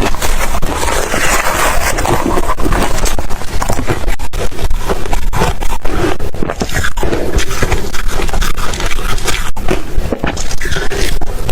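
Ice being bitten and chewed close to the microphone, a loud, continuous run of crunching and crackling.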